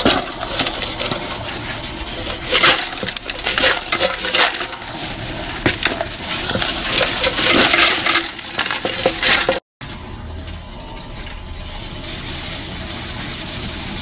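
Loose coins clattering in a coin-counting kiosk, a dense run of clinks and rattles. After a sudden break about ten seconds in, the kiosk's counting mechanism runs steadily as it tallies the coins.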